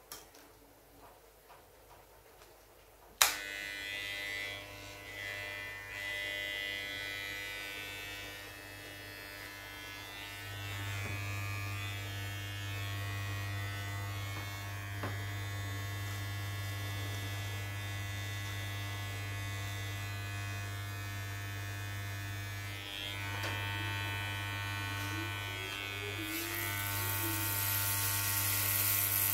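Electric hair clipper starting with a click about three seconds in, then buzzing steadily as it trims hair at the side of the head. The buzz deepens and grows stronger from about ten seconds in, and turns louder and hissier near the end.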